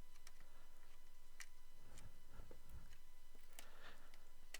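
Faint, scattered clicks and taps over a low steady hum, from computer parts being handled while a memory stick is fitted into a desktop PC.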